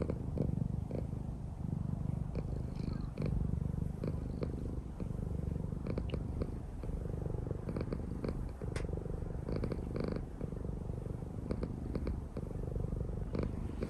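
Domestic cat purring steadily, close up, in an even rhythmic pulse, with a few light ticks over it.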